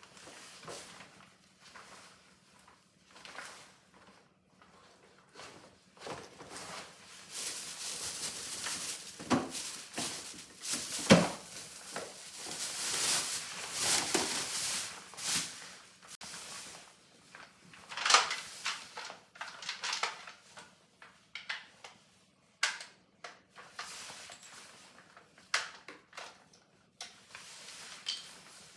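Hands handling objects at close range: a stretch of rustling from about 7 to 16 seconds in with a sharp knock in the middle, and scattered light clicks and knocks before and after.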